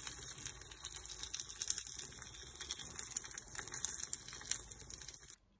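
Dumplings sizzling as they pan-fry in a non-stick frying pan: a steady hiss of frying with many small crackles and pops, cutting off suddenly near the end.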